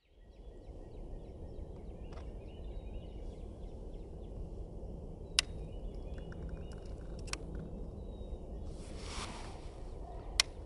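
A few sharp, isolated metallic clicks as a screwdriver turns the tape-primer ratchet on a Greene twist-action rifle's lock, over birds calling in the background. A short rush of noise comes about nine seconds in.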